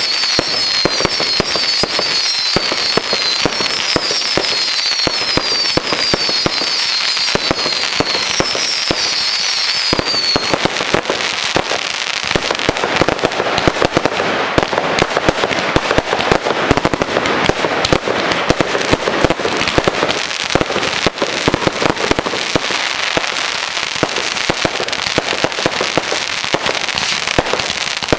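Fireworks going off in a dense, continuous crackle of rapid pops and bangs from crackling-star effects. For the first ten seconds a string of short, high, falling tones repeats about twice a second over the crackle.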